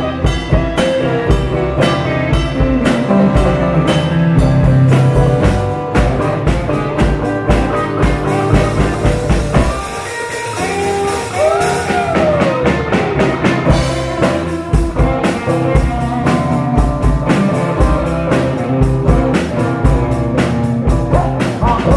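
Live blues band jamming: guitars, bass and drum kit playing a steady groove. About halfway through, the drums ease off briefly and a long sliding note falls in pitch.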